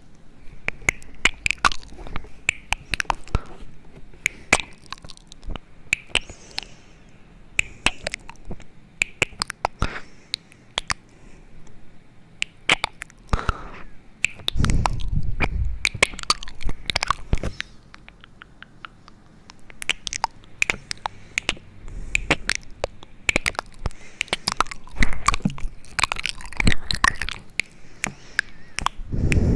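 Close-up clicking and crackling, many sharp clicks in an irregular stream, with a few soft low thuds near the middle and at the end.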